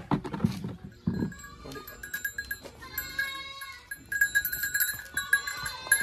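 Goats bleating, with a small bell on a Jamunapari doe's collar jingling as she moves.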